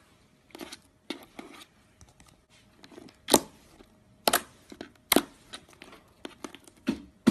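Slime being squeezed and stretched by hand, giving a string of separate sharp crackling pops, the loudest about three, four and five seconds in.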